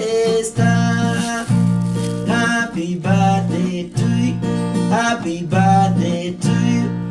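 Acoustic guitar strummed in a steady rhythm, the chords changing about once a second.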